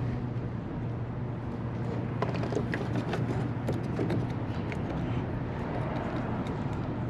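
Steady low hum of a running engine, with a few faint clicks and taps of hands working plastic clips and trim.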